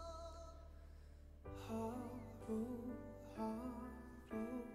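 Soft K-pop ballad playing quietly: a held note fades out, then about a second and a half in the piano-backed melody comes back in, with a voice singing the start of the next line near the end.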